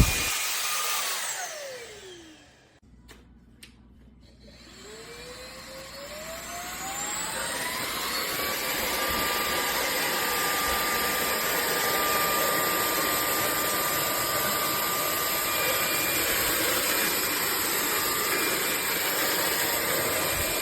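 SMOTURE cordless stick vacuum's motor winding down after a click, its whine falling in pitch into near quiet, with two small clicks. It then starts again and its whine climbs for several seconds before settling into a steady run.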